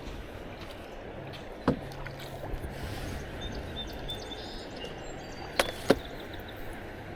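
Paddling a plastic kayak: a steady wash of water, with a sharp knock about two seconds in and two more close together near six seconds.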